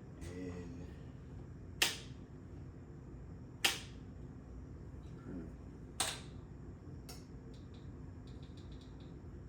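Three sharp clicks about two seconds apart, each ringing briefly, then a quick run of faint ticks near the end.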